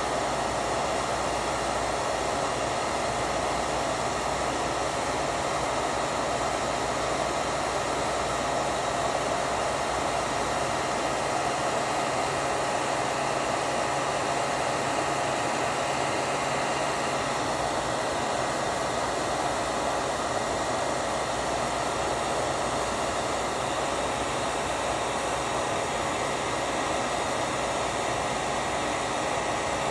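Handheld heat tool blowing hot air, a steady whirring rush of air that runs unbroken, used to melt and blend colored pencil on canvas.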